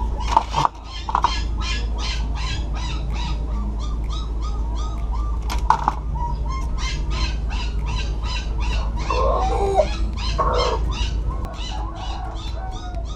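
Animal calls in the background: a rhythmic high chirping, about four chirps a second, over a steady low hum, with a few short lower calls about nine to ten seconds in.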